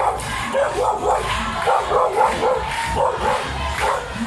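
A dog barking repeatedly and fast, about three short barks a second.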